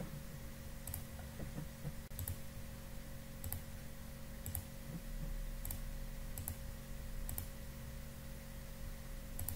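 Computer mouse clicking about eight times, roughly once a second, as options are picked from dropdown menus on screen. A faint steady electrical hum lies underneath.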